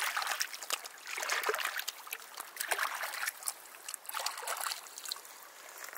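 Shallow river water splashing and trickling against stones close by, in several short swells. The first splash comes as a small fish is let go from the hands into the water.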